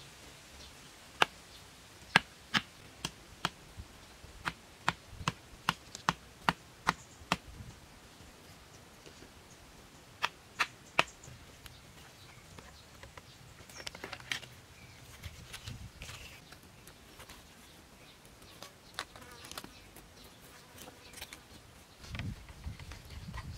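Sharp wooden knocks of a small axe driving wooden stakes into the ground: about fifteen blows in quick succession, two or three a second, then three more about ten seconds in. Then softer rustling and scraping of green vine strips as the stakes are lashed to the rails, with a few low thumps near the end.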